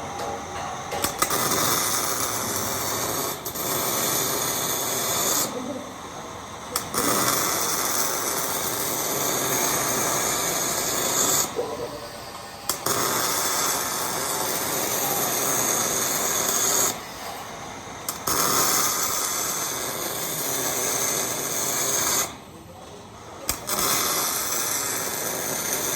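MIG welding arc crackling steadily while welding hex mesh, in runs of a few seconds broken by four short pauses where the trigger is released.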